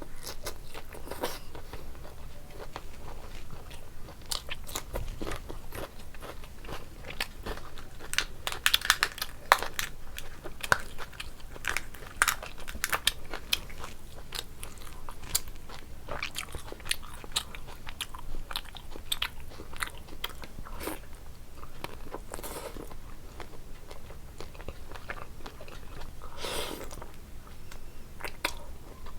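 A person chewing and biting into crunchy food, with irregular sharp crunches that come thickest around the middle.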